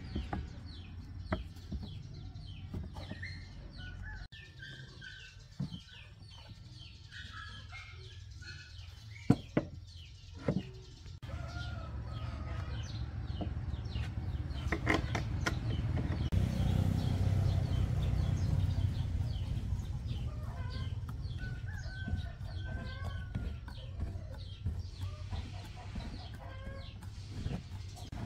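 Chickens clucking repeatedly, with a few sharp clicks of metal parts being handled and fitted on an electric hand planer. A low rumble builds up in the middle.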